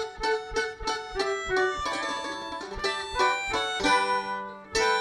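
A live acoustic string band opens a song: a plucked string instrument picks out a melody in single notes, several a second, each struck sharply and left ringing.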